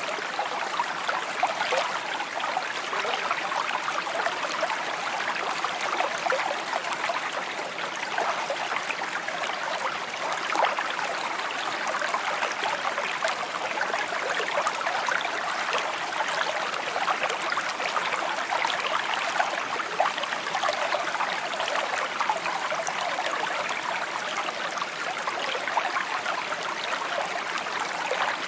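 A small creek babbling and trickling steadily, a continuous clear rush of running water without pause.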